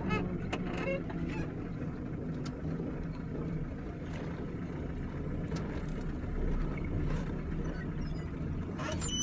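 Safari jeep's engine running low and steady as it creeps along a dirt track. A bird calls several times in quick succession about a second in, and a louder, sharp sound comes right at the end.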